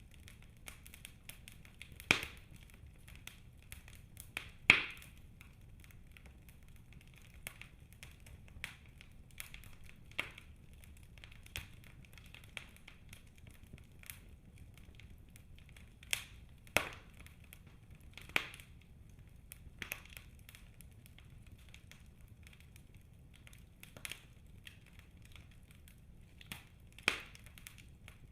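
Wood fire in a fireplace crackling, with about a dozen sharp pops scattered through it, the loudest about two and four and a half seconds in, over a low steady rumble.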